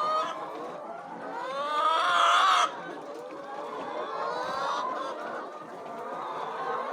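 A flock of domestic chickens clucking and calling over one another. A louder, drawn-out call rises from about a second in and cuts off sharply at about two and a half seconds.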